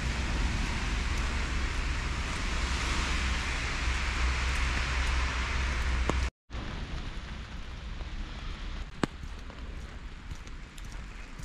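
Wind buffeting an action-camera microphone, a steady rushing noise with a low rumble. It cuts out for a moment about six seconds in, then continues quieter with a few sharp clicks.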